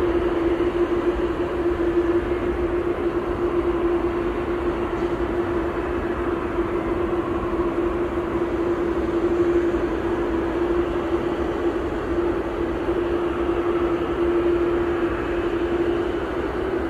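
Antonov An-225 Mriya's six D-18T turbofan engines running at low taxi power: a steady jet hum carrying one constant mid-pitched tone.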